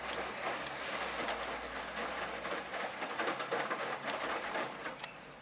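Hoover washing machine drum turning a wet laundry load on its heavy-duty programme with prewash: a churning rumble with many small knocks and short high squeaks. The drum stops about five seconds in.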